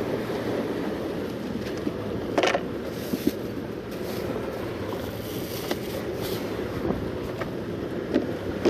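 Sea washing against the rocks, with wind rumbling on the microphone and a few faint knocks.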